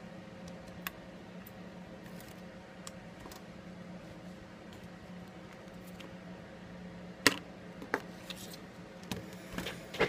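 Scattered small clicks and taps from handling a Samsung Galaxy S5 and its parts, with a sharper click about seven seconds in and a few more near the end, over a steady low hum.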